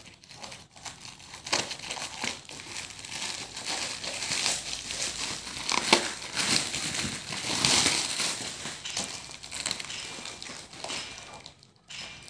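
Plastic packaging wrap crinkling and rustling as hands pull and crumple it off a motorcycle front fender, in irregular crackles that die down near the end.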